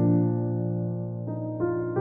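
Slow, soft background piano music: sustained chords, with new notes struck at the start and twice more about a second and a half in.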